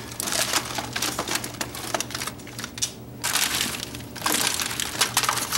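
Hands tossing oiled, chopped vegetables in a foil-lined aluminium pan: irregular crinkling of aluminium foil and squishing of the vegetables, easing off briefly about halfway through.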